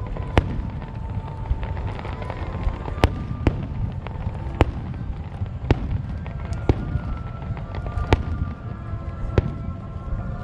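Fireworks display: sharp bangs of shells bursting about once a second, some close together, over a continuous low rumble of further bursts.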